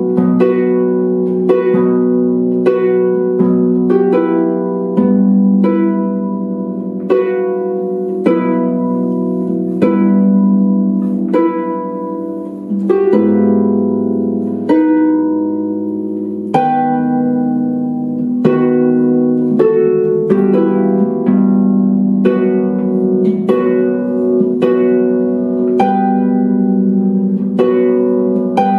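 Solo concert harp playing a slow piece: evenly paced plucked notes, each ringing and fading, over sustained low notes.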